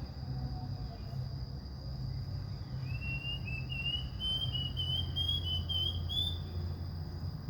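A bird singing: a quick run of about a dozen short whistled notes, roughly three a second, creeping up in pitch, starting about three seconds in.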